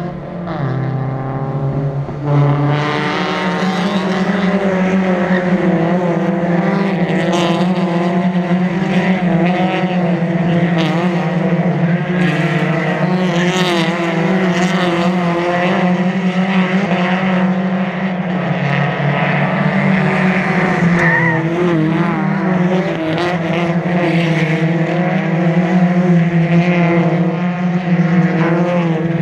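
Several Renault Twingo race cars running hard through a chicane, their engines overlapping at high revs with pitch rising and falling as they brake, shift and accelerate. The engines get louder about two and a half seconds in as the cars close in.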